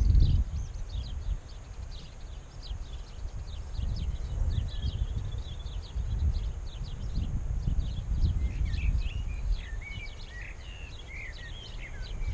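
Wind buffeting the microphone in uneven gusts, with small birds chirping and singing throughout.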